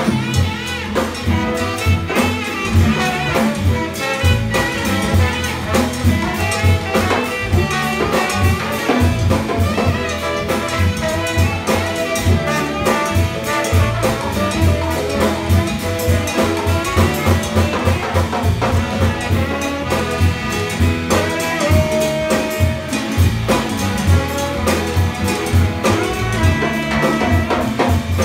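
Jazz band playing live: a trombone solo over upright bass, guitar, piano, drum kit and congas keeping a steady groove.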